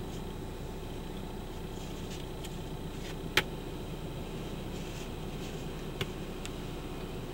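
Steady low vehicle rumble heard from inside a parked car's cabin. A sharp click comes about three and a half seconds in, and a fainter one near six seconds.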